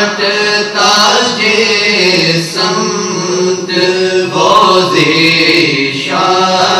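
Male voices singing a na'at a cappella in long, drawn-out chanted notes over a steady low vocal drone.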